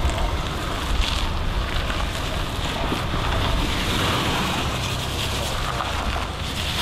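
Wind buffeting the microphone with a steady rumble, over the low running sound of a 2014 Range Rover Sport crawling slowly over rock slabs.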